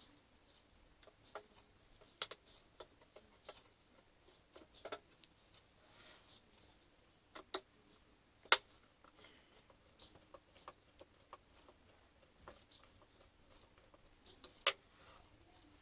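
Irregular light clicks and taps of fingers handling the metal casing of a Behringer Eurorack MX602A mixer, with a few sharper knocks about 2 s in, near the middle and near the end.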